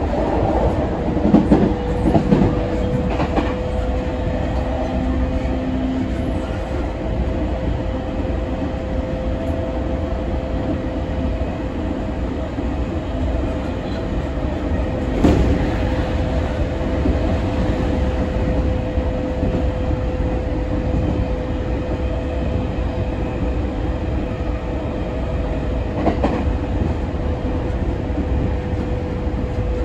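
Running sound inside a JR E231 series 900-number electric commuter train (set MU1) travelling at speed: a steady rumble of wheels on rail with an even whine running underneath. A few sharp knocks come from the track, the loudest about halfway through.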